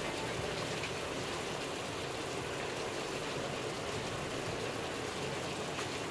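Chicken drumsticks sizzling steadily in an aluminium pot of caramelised cane sugar and butter, their juices bubbling as the meat browns.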